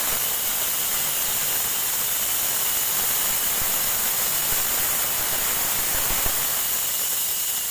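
Edited bicycle rear hub freewheeling, its pawls ratcheting so fast that they merge into a steady, loud buzzing hiss; the hub has been modified to sound louder.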